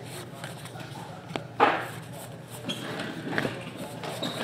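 Trading cards and packs being handled on a table: scattered light clicks and rustles, with a sharper tap about a second and a half in, over a steady low hum.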